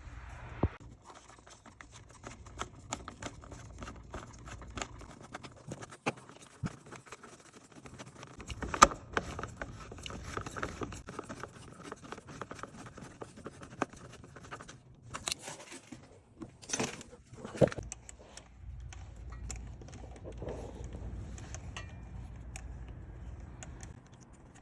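Hand tools and metal parts clinking and knocking irregularly while a bash bar and bracket are fitted to a car's front end. The loudest knock comes about nine seconds in, with a cluster of sharper knocks a little past halfway. A low hum runs underneath at the start and again near the end.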